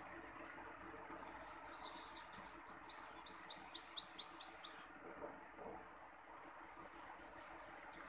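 Prothonotary warbler singing: a few soft twittering notes, then a quick series of about nine loud, rising sweet notes, over a steady background hiss.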